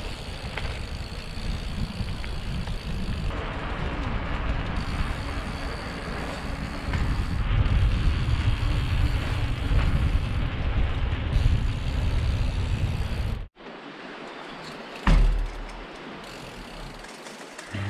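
Mountain bike riding with wind on the microphone: a steady rush of wind and tyre noise over gravel and tarmac, heavier from about seven seconds in. It cuts off abruptly, and a quieter stretch follows with one loud thump.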